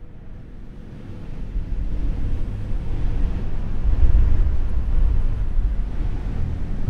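Muffled low rumble of water picked up by a GoPro Hero 3 held underwater in its waterproof housing, growing louder over the first few seconds.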